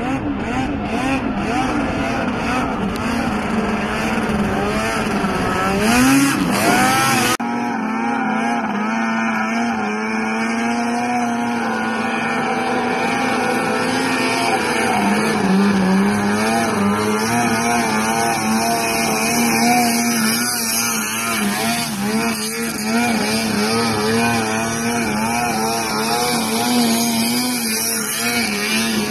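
Snowmobile engines held at high revs as the sleds skim across open water, the pitch wavering up and down continuously, with a rush of spray noise. About six seconds in the engine revs up, and just after seven seconds the sound cuts abruptly to another sled's engine.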